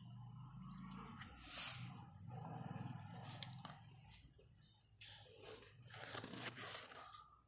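Faint background: a steady, high-pitched, finely pulsing insect trill over a low hum.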